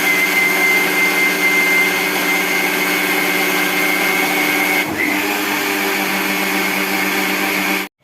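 Electric mixer grinder (mixie) running at full speed, grinding grated coconut, onion, spice powders and water into a curry paste: a loud, steady motor whine with a brief dip about five seconds in. It stops abruptly just before the end.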